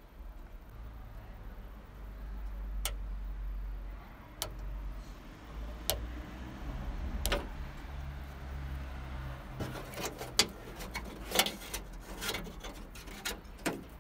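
Hands handling car wiring and a rubber wiring gaiter: scattered sharp clicks and light rustling of wires and plastic parts, coming thick and fast in the second half, over a low rumble.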